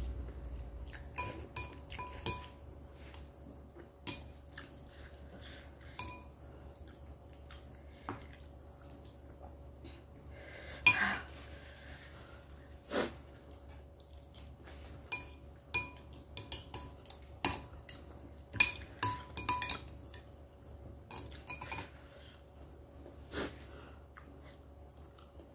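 A metal spoon and chopsticks clinking against a bowl while noodles are eaten: a scattering of sharp, irregular clinks, each with a brief ring, and a longer noisy sound about eleven seconds in.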